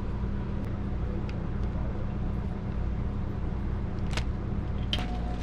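A steady low hum, with a few light clicks of knife and hands on a cutting board. A sharper crinkle about four seconds in comes as raw fish pieces are dropped into a plastic bag of breading.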